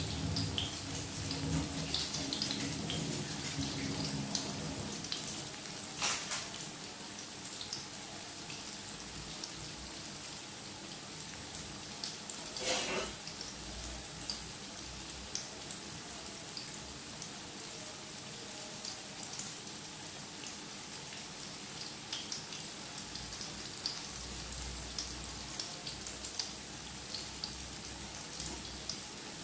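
Tofu patties shallow-frying in hot oil in an aluminium wok: steady sizzling, thick with small crackling pops. There is a louder spit about six seconds in and another near thirteen seconds. The patties are still cooking on their first side, with the underside browning before they are turned.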